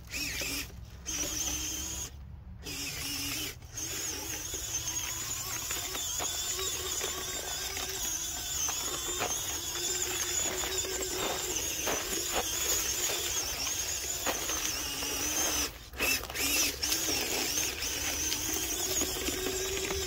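Electric drive motor and gears of a 1:18-scale FMS Toyota FJ Cruiser RC crawler giving a steady high whine under throttle, with light crunching and rustling as the tyres go over dry grass and ice. The whine cuts out briefly about two seconds in and again near the end.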